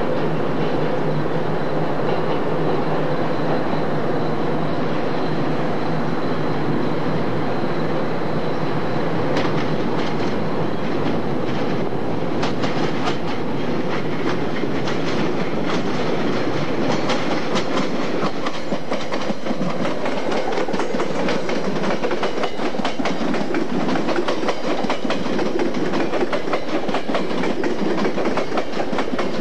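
Electric passenger train running on the rails, a steady wheel-on-rail noise with a hum. Rapid clickety-clack of wheels over rail joints thickens about halfway through.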